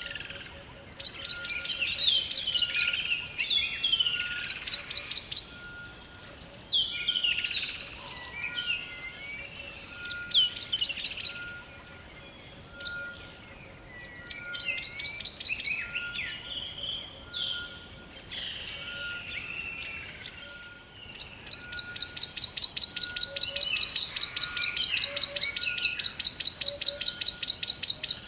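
Several forest birds calling and singing together: short chirps and whistles mixed with fast rattling trills, ending in one long, steady trill over the last seven seconds. A faint, evenly repeated pip runs underneath.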